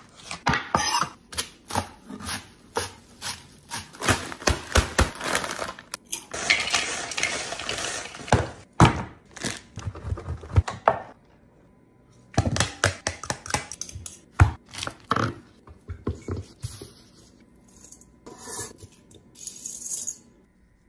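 Chef's knife chopping peppers on a wooden cutting board, in runs of quick knocks, with scraping and clatter of kitchen utensils. A steady hiss lasts about two seconds, about a third of the way in.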